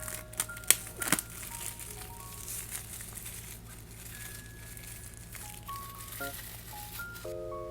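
Crinkling and rustling of packaging being handled, with a few sharp clicks, over sparse background music of single sustained notes. The crinkling stops shortly before the end.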